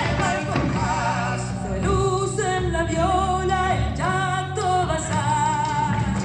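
Argentine folk dance music for a gato and chacarera, a voice singing long wavering notes over instrumental accompaniment.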